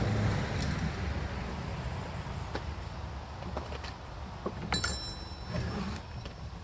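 Tools and chainsaw parts being handled during a teardown: scattered light clicks and taps, with a sharper metal clink about five seconds in that rings briefly, over a low background rumble.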